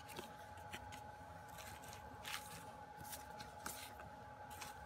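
Faint, scattered rustles and light taps of hands handling a photocard and a cardboard album case on bubble wrap, a handful of brief sounds.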